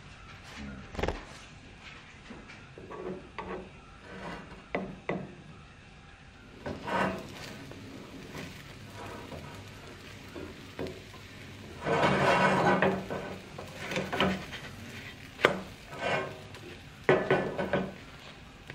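Slotted spatula scraping and tapping in a frying pan as a pancake is worked loose and flipped. The loudest scrape lasts about a second, two-thirds of the way through, and is followed by a few sharp taps.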